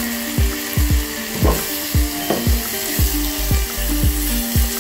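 Background music with a steady beat, over the sizzle of onions and tomatoes frying in a clay pot as they are stirred with a wooden spatula.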